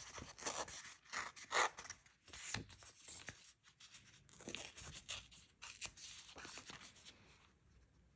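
A sheet of patterned scrapbook paper being torn by hand in a series of short rips, with paper rustling. It goes quieter after about six seconds.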